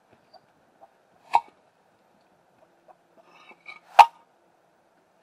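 Concrete blocks being set down: two sharp knocks, one about 1.4 s in and a louder one about 4 s in, with faint scraping and clicks just before the second.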